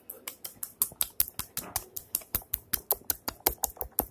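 Fingers tapping and clicking on the phone close to its microphone: a fast, slightly irregular run of sharp taps, about seven a second.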